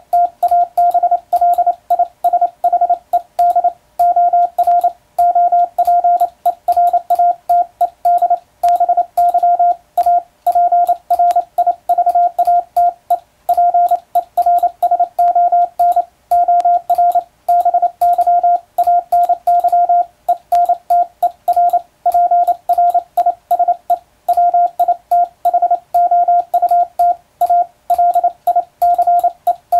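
International Morse code sent with an electronic keyer: a steady beep tone keyed rapidly on and off in dots and dashes, with faint clicks at the edges of the elements.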